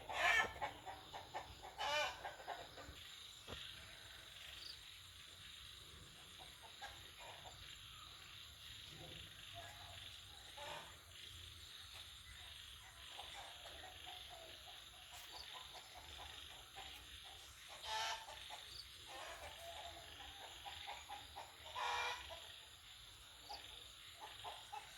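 A flock of chickens clucking continually, with a few louder drawn-out calls: one at the start, one about two seconds in, and two more later on.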